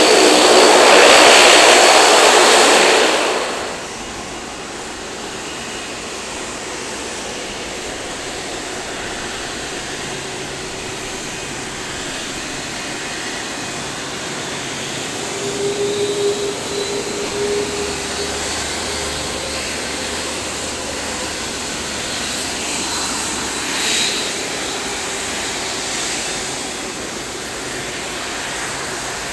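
Airbus A330 jet engines running at taxi power as the airliner rolls past: a steady engine noise with a faint whine. In the first few seconds a louder rush of engine noise drops away about three and a half seconds in.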